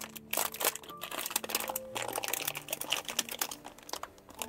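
Clear plastic packaging bags crinkling and crackling irregularly as a small remote control and its cable are handled in them.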